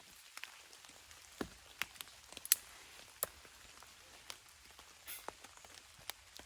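Irregular raindrops tapping on a tarp over a faint, steady rain hiss, with one sharper drop about two and a half seconds in.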